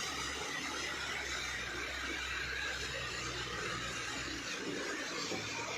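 A vehicle engine running steadily with a low hum whose pitch shifts slightly about four seconds in, over a noisy roadside background with faint laughter.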